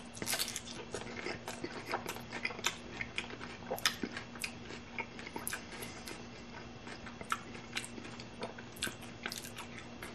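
Close-up chewing of a crunchy hard-shell corn taco: the fried shell crackles and crunches in the mouth in short, irregular snaps, a few a second.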